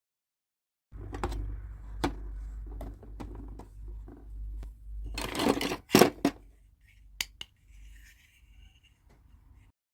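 Toy packaging and small plastic pieces being handled, with scattered clicks and rustling. A louder rush of rustling comes about five seconds in and ends in a couple of sharp clicks.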